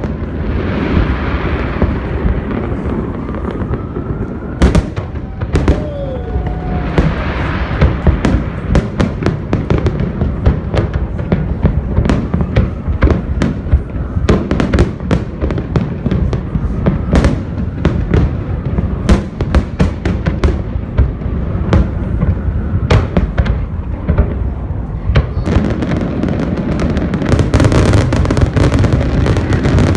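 Aerial fireworks display: a rapid, continuous string of shell bursts and bangs over a low rumble. About twenty-five seconds in it grows denser and louder, with thick crackling.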